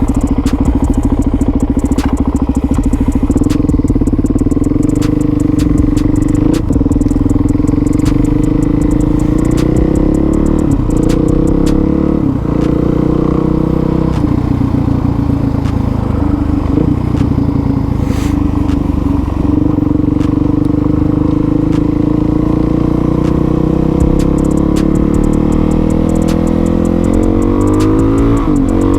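Suzuki DRZ400SM supermoto's single-cylinder four-stroke engine running through an aftermarket MRD exhaust while being ridden. The engine note rises and falls with the throttle, with a rising rev near the end.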